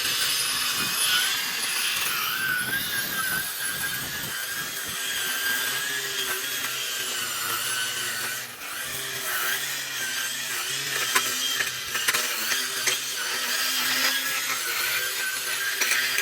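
Handheld power lawn edger running steadily with a high motor whine as it cuts grass along a concrete edge.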